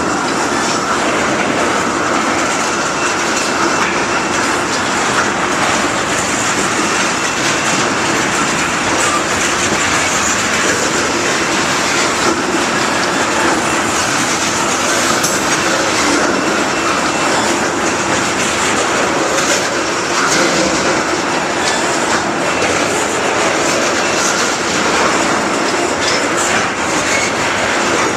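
Freight cars of a passing freight train rolling by, their steel wheels clattering over the rail joints in a steady, continuous noise.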